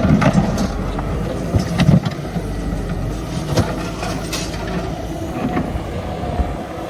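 An engine running steadily, with irregular knocks and clanks of demolition work over it.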